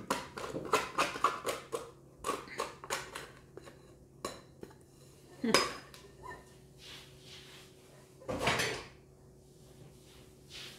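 Quick clinks and scrapes against a glass mixing bowl as sticky sourdough dough is worked out of it onto the counter. Then comes a louder knock about halfway, and a longer clatter near the end as the empty bowl is handled and put away.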